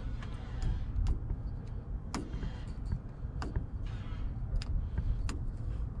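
Scattered light clicks and ticks, about seven in six seconds, from a test light's probe and leads being handled at a wire connector, over a steady low rumble.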